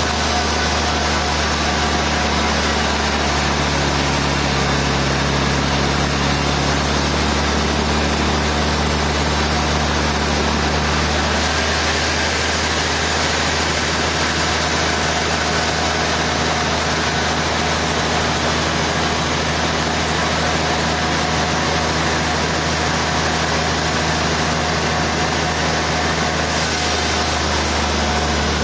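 Sawmill machinery running steadily: an engine hum under a constant, even mechanical noise that never lets up.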